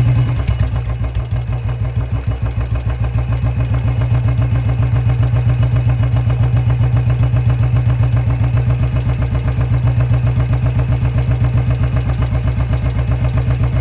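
Royal Enfield Bullet 350's single-cylinder engine running at a steady idle in gear, with an even beat, turning the rear wheel and its dry, unlubricated drive chain, which is making noise. The level dips briefly about a second in, then holds steady.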